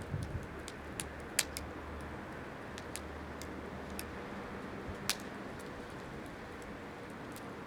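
Wood campfire crackling: irregular sharp pops over a steady hiss, the loudest about a second and a half in and again about five seconds in.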